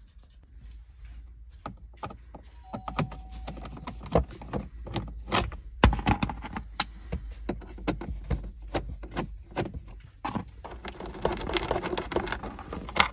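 Irregular clicks and taps of a Torx T20 driver working screws out of the plastic lower centre console trim of a Renault Master 3. There is a brief squeak about three seconds in and a rustle of the trim being handled near the end.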